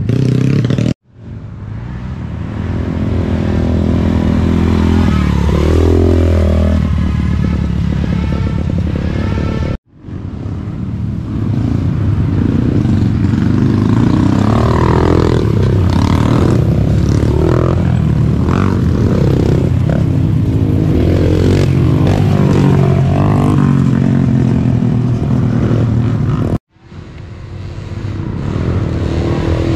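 Racing ATV engines revving hard as quads accelerate past on a dirt trail, their pitch rising and falling with each pass. The sound cuts out sharply three times and swells back in.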